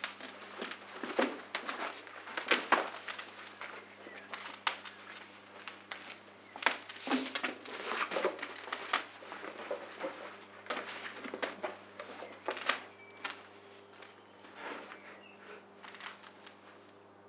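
Cloth, bedding and bags rustling and crumpling as supplies are gathered up and packed, with irregular scuffs and knocks, over a low steady hum.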